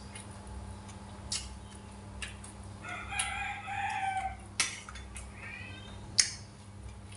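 A rooster crowing, one long crow about three seconds in, then a shorter call about a second later. Sharp clicks of eating utensils against a steel rice bowl, four times, the two near the end loudest.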